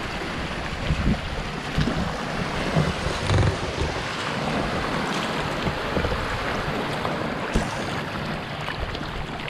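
Shallow seawater sloshing, with wind buffeting the microphone in irregular low thumps, mostly in the first few seconds.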